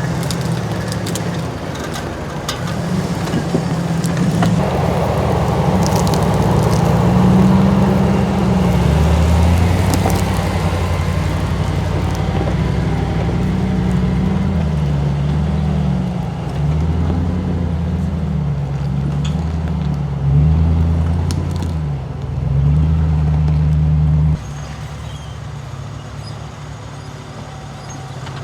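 Off-road vehicle's engine revving up and down repeatedly as it works over terrain. About 24 seconds in it drops back to a quieter, steady idle.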